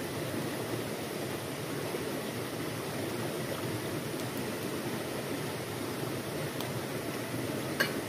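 Steady rushing of a flowing river. Near the end there is a brief light clink.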